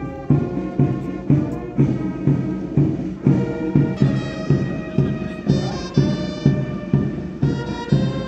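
Brass band playing ceremonial salute music: sustained brass over a steady drum beat about twice a second.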